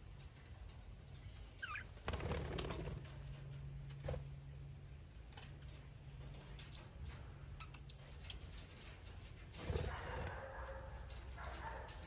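Budgerigars chirping and chattering faintly. A short rising chirp comes about two seconds in and a spell of warbling chatter near the end, over a steady low hum and scattered light clicks.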